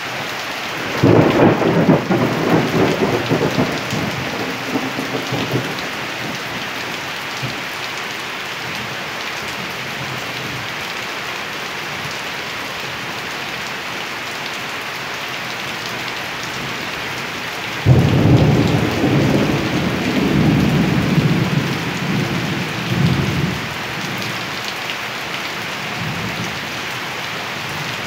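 Steady rain falling, with two rolls of thunder. The first rumbles for about five seconds starting a second in; the second begins suddenly about two-thirds of the way through and rumbles on for about five seconds.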